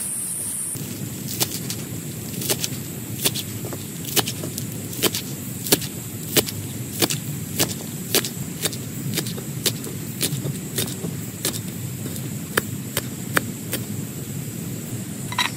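Heavy rain on a tent: a steady hiss of rain with sharp, irregular taps of large drops hitting the fabric, about one or two a second.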